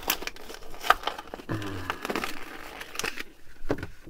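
A diecast car's plastic blister pack and card being pulled open by hand: crinkling and crackling plastic with a few sharp clicks and cracks.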